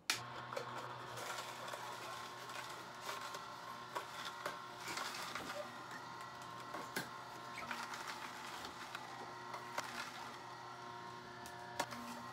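Horizontal slow masticating juicer running with a steady motor hum while produce is pushed down its chute, with intermittent crackles and clicks as the auger crushes carrot, beet and apple.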